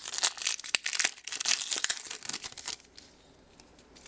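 Thin plastic wrapper crinkling and tearing in hands as a trading card is unwrapped, dense crackling for about the first three seconds, then going quiet.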